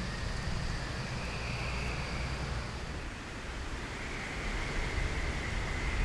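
Low rumble of wind on the microphone, easing a little midway and building again near the end, with faint steady high-pitched tones in the background.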